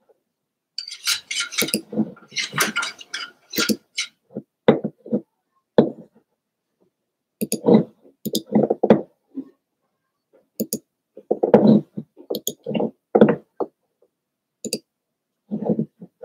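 Irregular clattering and knocking of hard objects being handled, in short bursts: a run of sharp rattles about a second in, then scattered thuds and knocks in groups.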